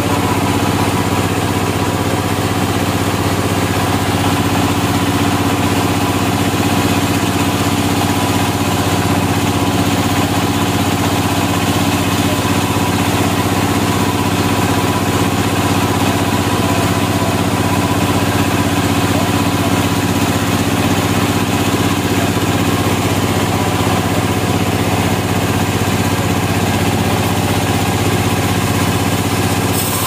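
Band sawmill's power unit running steadily, an even mechanical hum with no change in speed or load.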